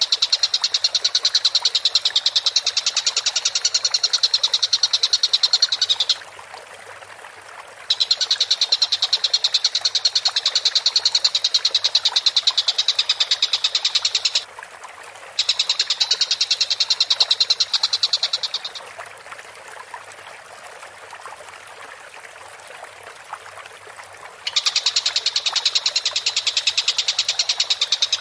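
Tengkek buto kingfisher calling in long, very fast rattling bouts of high notes. There are four bouts of several seconds each, with short pauses between them.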